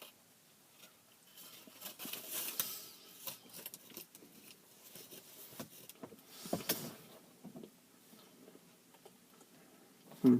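Faint chewing and small handling noises of someone eating a chicken biscuit, with a couple of louder rustles and a short hum-like vocal sound near the end.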